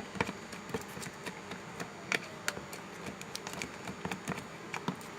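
A thickening slime mixture of glue, hand wash and shower gel being stirred in a bowl: irregular soft clicks and taps of the stirring utensil against the bowl, over a faint steady hum.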